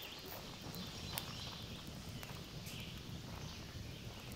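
Freshly lit campfire of split firewood crackling, with a few sharp pops, over quiet outdoor ambience with faint bird calls and a low rumble.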